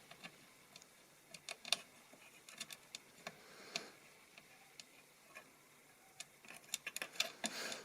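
Small, light clicks and taps of a screwdriver, screw and M.2 standoff being handled on a PC motherboard, irregularly spaced, coming quicker near the end.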